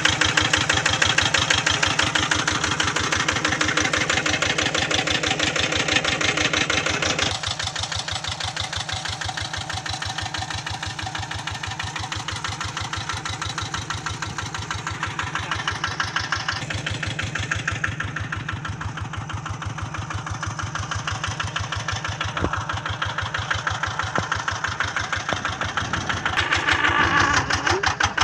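Kubota RD85 single-cylinder diesel engine on a hand tractor, running unloaded with a steady, even chugging beat. It is louder in the first seven seconds and again near the end.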